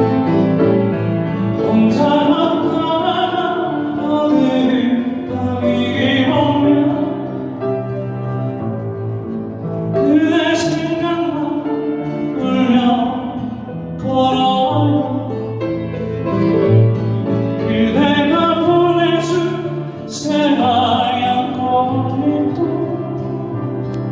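A slow ballad sung by a voice over piano accompaniment, the sung phrases swelling and falling in long lines.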